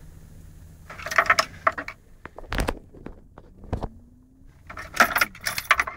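Metallic jingling and clicking, like loose keys or small metal parts rattling, in two clusters about a second in and from about five seconds in, with a few dull knocks between, over a faint low hum inside a car.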